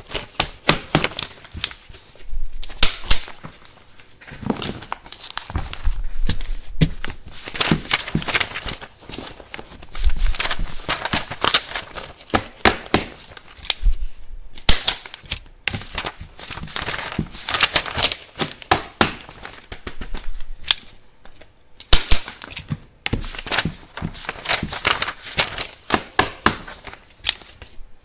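Stapler being worked on paper over and over: sharp clicks and snaps in quick clusters, with paper rustling and crinkling between them and short pauses now and then.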